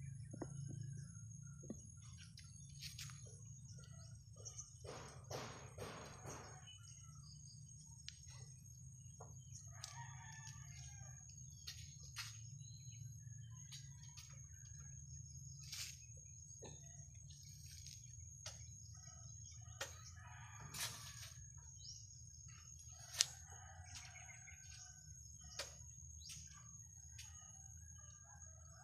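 Faint scattered clicks and rustles of bonsai wire being wound around ficus branches, with one sharper click late on. A rooster crows in the background over a steady low hum.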